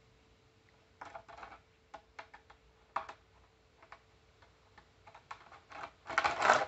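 Scattered light clicks and knocks from a 52cc chainsaw being handled, with a louder rustling scrape near the end.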